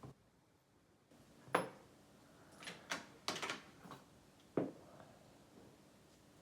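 Small metal clicks and taps from a pin-tumbler deadbolt rim cylinder being taken apart by hand: about six separate sharp knocks, a few of them in a quick cluster.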